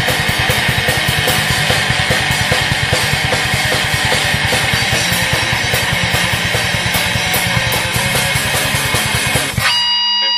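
Raw black metal: fast distorted guitar over a rapid, even blast beat on the drum kit, with a thin, lo-fi sound. Near the end the drums break off, leaving a single high held note ringing.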